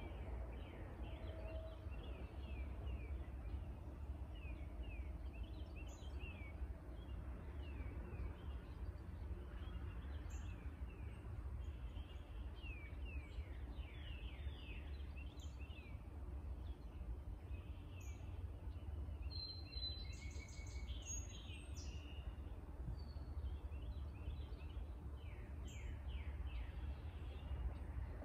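Small birds chirping: many short falling chirps keep coming, with a brief run of higher, fuller song about twenty seconds in. Underneath is a steady low rumble and hiss.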